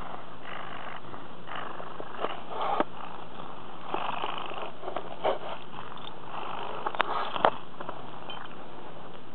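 Siamese cat purring with its fur rubbing and brushing against the microphone, which adds scratchy rustles and a few sharp clicks.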